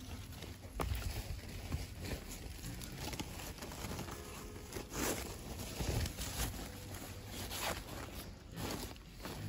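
Woven plastic sack rustling and crinkling in short, irregular scrapes as it is handled, with a few soft bumps.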